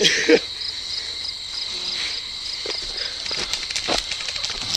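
Insects chirping in a steady high-pitched trill with evenly repeating pulses, with a few short knocks from movement through the brush.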